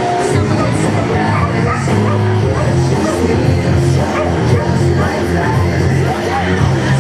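Rock music with a steady bass line, played loud.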